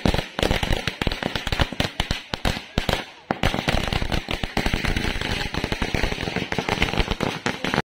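A chain of firecrackers going off in a rapid, continuous run of sharp pops, with a brief break about three seconds in.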